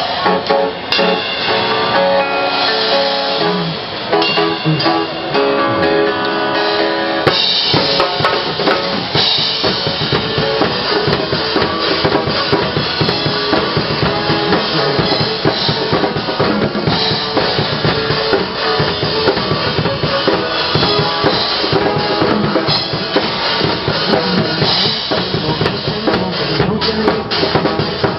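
Music: a guitar-led opening with sustained pitched parts, then a loud drum-kit beat with bass drum and snare comes in about seven seconds in.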